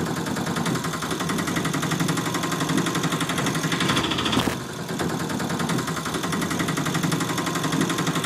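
A small motor running with a rapid, steady, engine-like rattle, dipping briefly about four and a half seconds in.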